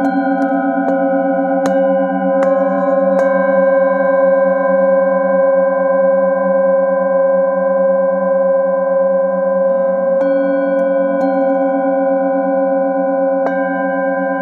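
Several singing bowls struck in turn with a felt-covered mallet: about five strikes in the first three seconds and a few more after about ten seconds. Their tones ring on and overlap in a long sustained chord, with a slow wavering in the lowest tones.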